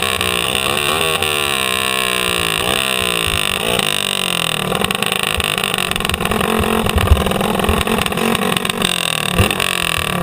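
Racing kart engine heard from an onboard camera as the kart slows: the revs fall and rise in several sweeps, then the engine runs rougher at low revs. Two sharp knocks come about seven seconds in and near the end.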